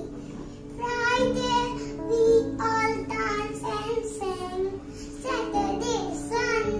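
A young child singing a song in phrases over an instrumental backing track with steady held notes.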